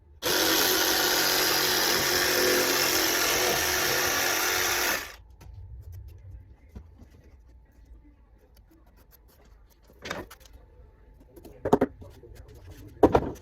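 Jigsaw cutting a circle out of a dartboard backing board. It runs steadily for about five seconds and then stops. Three sharp knocks follow near the end, the last one the loudest.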